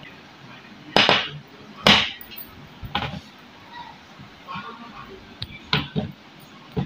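A hand pressing and turning chicken pieces in a bowl of flour, with about five sharp knocks against the bowl, the loudest about one and two seconds in.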